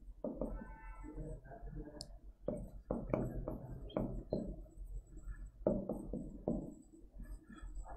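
Stylus knocking and scratching on a smartboard's glass screen as words are written: an irregular run of light taps and knocks.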